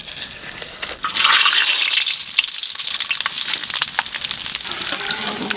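Whole spices (bay leaves, dried red chillies, cardamom and cumin) hitting hot vegetable oil in a large metal wok. A sudden loud sizzle starts about a second in and settles into a steady sizzle with many crackles as the spices fry.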